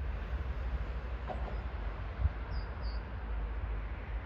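Steady low outdoor rumble with no train passing, and two short, faint, high bird chirps a little after halfway.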